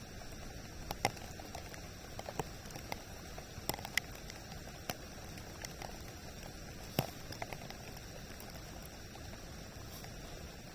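Light precipitation ticking irregularly close to the microphone, a dozen or so sharp taps spread over a steady hiss.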